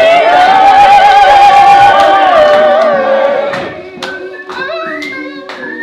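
A group of voices singing together a cappella, one voice holding a long note with vibrato for about three seconds before it slides down and fades. Quieter voices follow, with a few sharp clicks.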